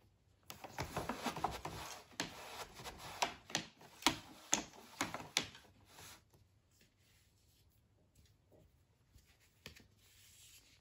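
Wooden rigid heddle loom in use: yarn rubbing and scraping against the heddle and warp, with a series of sharp wooden clicks and taps as the heddle is moved and the weft beaten in. After about six seconds it drops to faint rustling.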